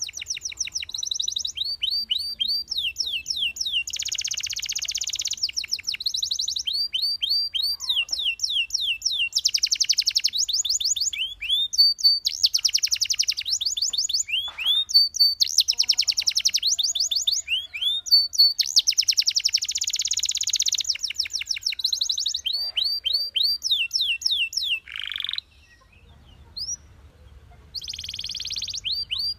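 Belgian canary singing: fast trills of repeated rising notes alternating with dense buzzy rolls. The song breaks off for a couple of seconds near the end, then starts again.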